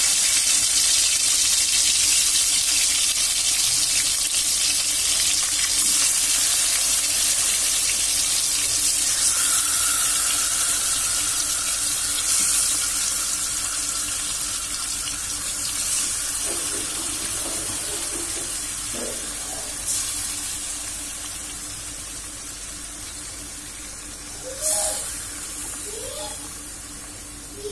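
Marinated hilsa fish pieces sizzling loudly as they are laid into hot mustard oil in a kadai, with a fresh surge of sizzling several times as more pieces go in, the whole slowly dying down.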